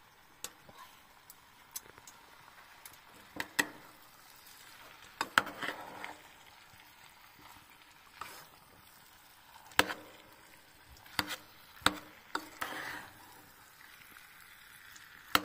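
A metal spoon stirring fried goose and potatoes in an enamel bowl, with scattered irregular clinks of the spoon against the bowl. A soft sizzle comes and goes as the food warms on the stove top.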